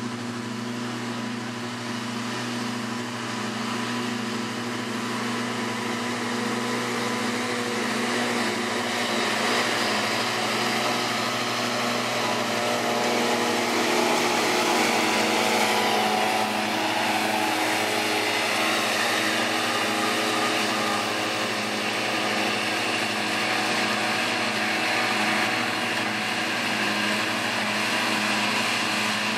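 Lamborghini tractor's diesel engine running steadily under load while it drives Pöttinger disc mowers, the spinning mower discs adding a whirring hiss as they cut standing grass. It grows louder as the tractor passes close, about halfway through, and stays fairly loud after.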